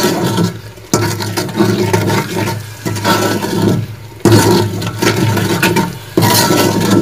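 Metal spoon stirring and scraping ground spices frying in oil in a cooking pot, with sizzling. The sound comes in surges every second or two, each starting suddenly with a stroke of the spoon, as the masala is sautéed.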